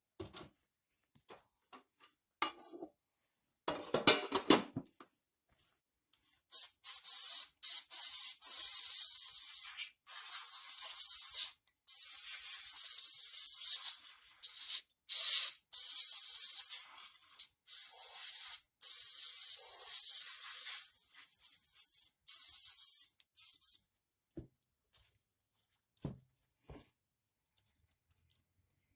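A short clatter of small carburetor parts being handled, then a long hiss of spray cleaning them, in many short bursts with brief breaks. The parts are from a 1964 Johnson 3 hp outboard's carburetor, just out of an overnight soak in carb cleaner.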